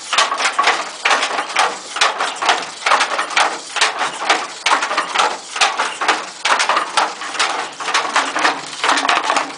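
Wooden handloom clacking in a steady rhythm of about two to three knocks a second as the weaver works it by hand.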